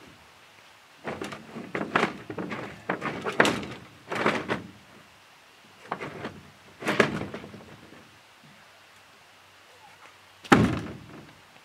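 Handling noises at the water's edge in a few irregular bursts, then one sharp, loud thunk near the end.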